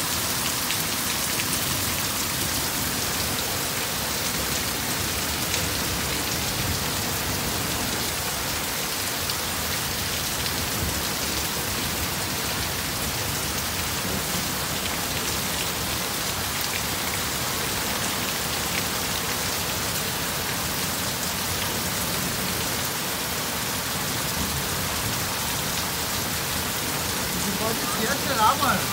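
Heavy rain falling steadily, with water pouring off a roof edge in streams. Near the end a short pitched sound briefly rises above the rain.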